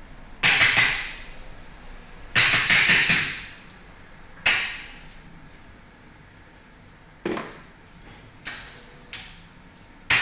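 Sharp metal knocks and clanks from espresso-making gear handled at an espresso machine, such as a portafilter being knocked out and locked in, and metal jugs being set down. The knocks are irregular: a quick run of three or four about two seconds in, then single ones every second or few.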